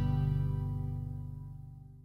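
Closing background music ending on a final held chord that rings and fades away.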